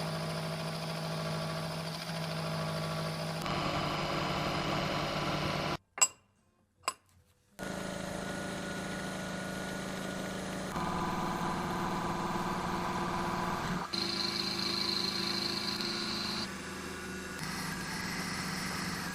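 Machine tools running and cutting metal in a string of short clips, each with its own steady hum and whine and the pitch changing abruptly from one cut to the next. About six seconds in there is a short break with two sharp clicks.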